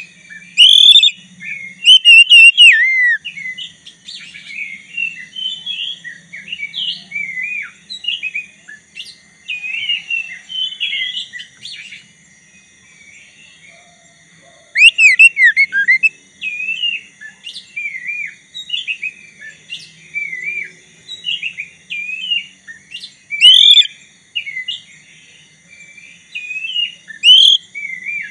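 Black-breasted oriental magpie-robin (kacer dada hitam) singing almost nonstop: a rapid, varied string of sweeping whistles and chirps, with several very loud phrases and a brief lull about halfway through. This is the full, non-stop song that keepers call 'gacor', played to provoke rival magpie-robins into singing.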